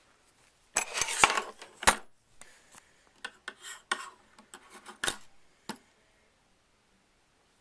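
Metal clicking and clinking of a cheap balisong's loose, broken parts being handled: a dense clatter about a second in, then scattered single clicks.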